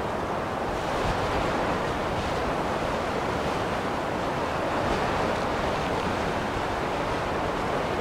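Blizzard wind blowing, a steady dense rushing noise that swells slightly about a second in.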